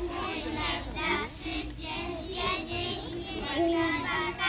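A group of children singing together in the open air.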